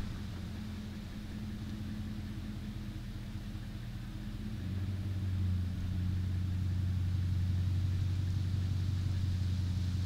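Ram pickup truck's engine running as it drives slowly toward the listener, a steady low hum that grows louder about four and a half seconds in.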